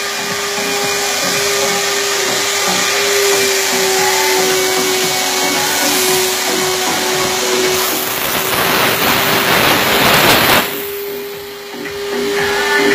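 Steam car wash machine's steam jet hissing steadily over a constant hum from the machine. About two-thirds of the way in the hiss grows louder and fuller, then cuts off abruptly, and it starts again shortly before the end.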